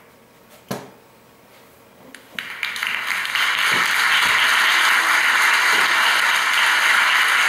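Studio audience applauding, starting about two and a half seconds in after a short lull broken by a single click.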